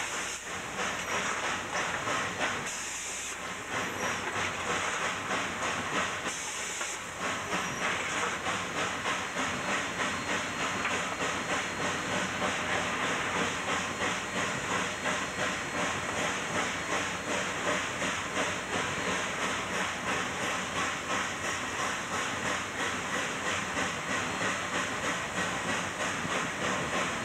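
Cab sound of a K-36 narrow-gauge 2-8-2 steam locomotive working hard upgrade with a heavy train: a steady rhythm of exhaust beats over the constant hiss of steam and clatter of the engine. Two short spells of louder, sharper hiss come a few seconds in.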